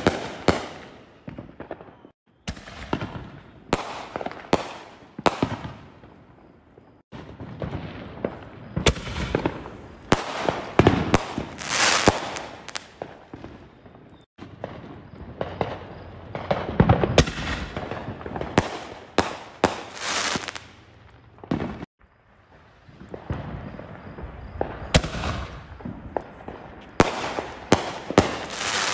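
Consumer artillery shells going off one after another: sharp launch and burst bangs, each followed by a spell of crackling and popping. The sound breaks off abruptly several times between shots.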